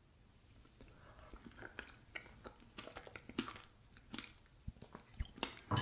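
A person chewing a mouthful of skyr with berries close to the microphone: soft wet mouth sounds with scattered small clicks, and a louder one near the end.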